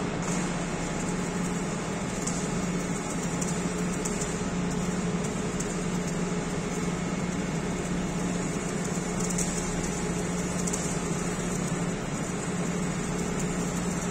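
Stick (arc) welding on a steel column: a steady, dense crackling hiss of the electrode arc, over a constant low machinery hum.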